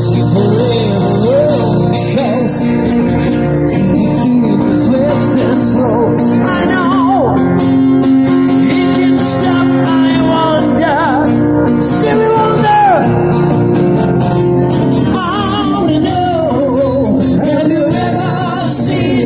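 Live duo of two acoustic guitars strummed together, with a man singing a melody over the chords.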